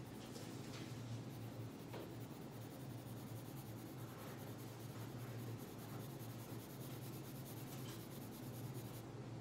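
Colored pencil shading on paper: a soft, continuous scratching of the lead being stroked back and forth, over a low steady hum.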